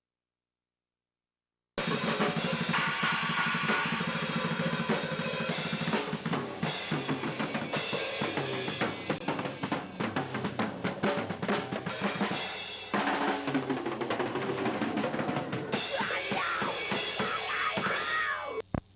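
Rock band music led by a busy drum kit with bass drum and snare hits, with pitched instruments underneath. It starts abruptly about two seconds in and cuts off suddenly just before the end.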